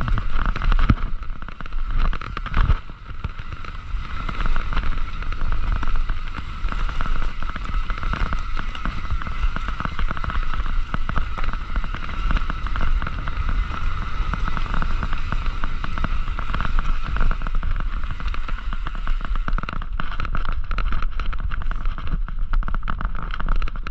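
Mountain bike riding along a dirt trail: a continuous rumble with dense crackling and rattling from the tyres and bike over the ground, and wind on the microphone.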